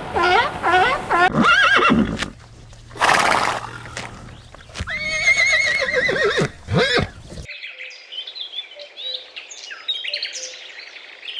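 Horse neighing: a few short calls and a breathy snort, then a long quavering whinny about five seconds in. Cut off abruptly near the middle, followed by faint bird chirps.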